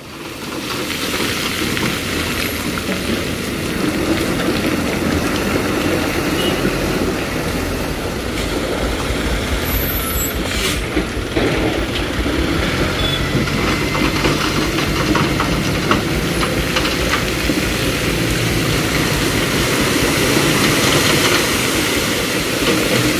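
Intercity coach bus's diesel engine running close by as it moves along the road, a steady, loud vehicle rumble with road traffic mixed in.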